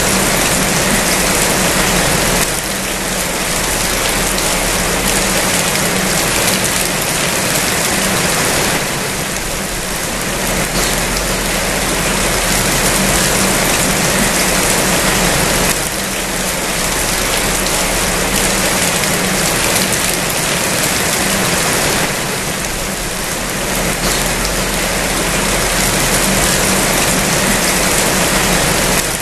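Heavy rain falling steadily, a dense even hiss, with a steady low hum beneath it.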